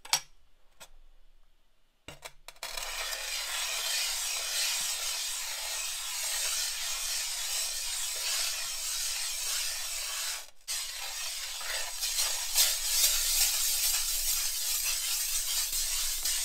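Glass muller grinding azurite pigment into watercolor paint on a glass slab: a continuous gritty, hissing rasp from the circular strokes. It starts about two and a half seconds in, with a brief break about ten seconds in. The grinding grows smoother as the pigment is ground finer and the paint turns lighter.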